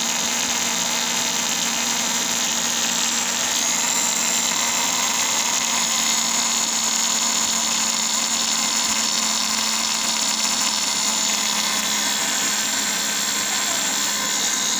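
Small brushed DC can motor spinning at high speed: a steady high-pitched whine with brush buzz that cuts off suddenly at the end.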